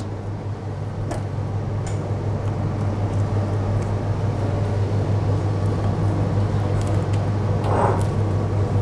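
Steady low mechanical hum of kitchen equipment, with a few faint clicks.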